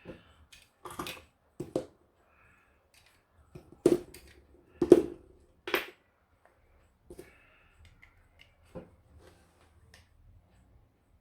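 Irregular clicks and knocks of small hard parts being handled and set down during clock restoration work, the two loudest knocks about 4 and 5 seconds in, with faint scraping between them.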